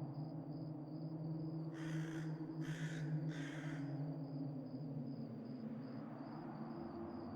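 A crow cawing three times in quick succession over a steady low drone and a high, rhythmic cricket-like chirp.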